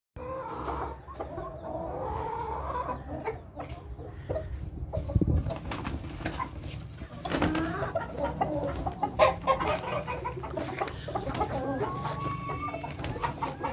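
Amroha Aseel chickens clucking, with scattered short clicks and scuffs.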